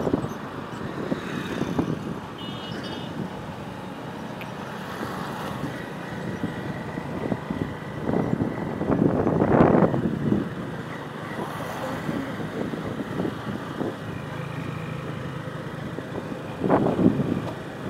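Motorcycle in motion: steady engine and road noise, swelling louder twice, about halfway through and near the end.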